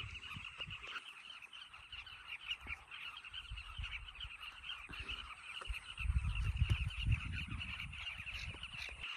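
A breeding colony of carmine bee-eaters calling, a dense, continuous chorus of many short overlapping calls. About six seconds in, wind buffets the microphone with a low rumble for a second or so.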